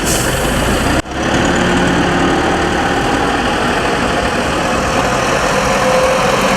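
Tractor engine running steadily at low revs, with a brief break about a second in.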